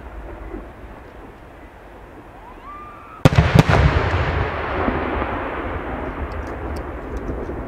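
Fireworks display: a faint rising whistle, then a large aerial shell bursts with a loud double bang about three seconds in. A long rolling echo follows, with a few small crackles near the end.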